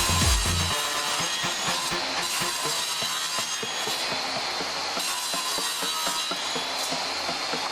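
Woodworking power tool running on wood, a steady dense noise. A beat of background music drops out about a second in.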